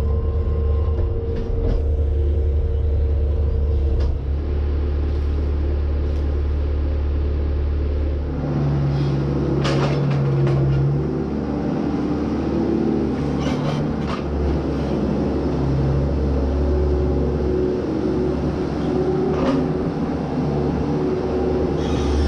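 Bobcat skid-steer loader's diesel engine running steadily, heard from inside the cab, its note changing about a third of the way through as the loader works. A few metal clanks and rattles come over it, at about ten, fourteen and twenty seconds.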